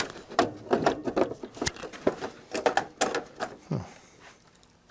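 Quick, irregular clicks, knocks and scrapes of a large printed circuit board being worked loose from its metal chassis. They go on for about four seconds, then die down.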